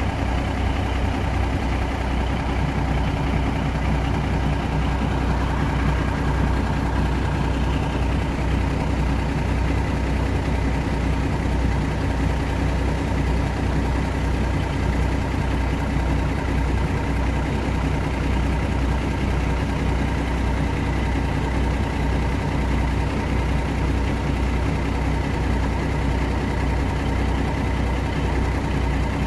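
Diesel train engine idling with a steady low hum.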